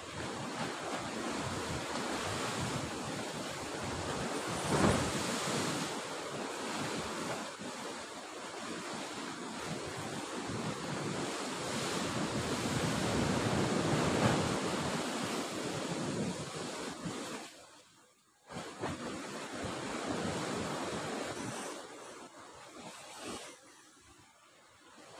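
Sea surf breaking and washing against the rocks below the cliff, mixed with wind buffeting the microphone. It swells and fades in waves and drops away sharply for a moment about eighteen seconds in.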